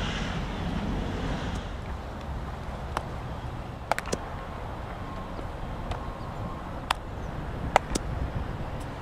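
Outdoor wind noise on the microphone with about six sharp cracks scattered through the middle of the stretch: a baseball being struck or caught during practice drills.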